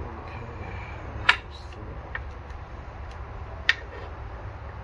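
Sharp metallic clicks as a compression tester's hose and gauge are fitted to a spark plug hole of an inline-six outboard. There are two loud clicks, one about a second in and one near the end, with fainter ticks between them over a steady low rumble.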